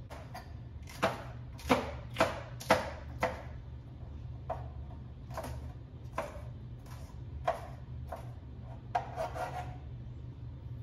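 Chef's knife chopping small peppers on a cutting board: a series of sharp, uneven knocks of the blade against the board, roughly one or two a second, loudest a couple of seconds in.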